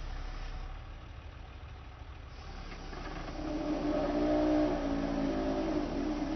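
Auto crane truck's engine running with a low steady rumble. About three seconds in, a pitched drone swells up as the engine revs, then falls away near the end.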